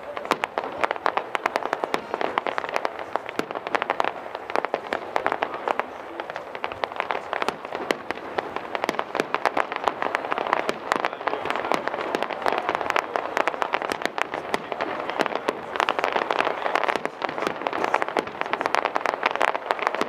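Aerial fireworks display: a dense, unbroken run of rapid crackles and small pops from bursting shells and crackling effects.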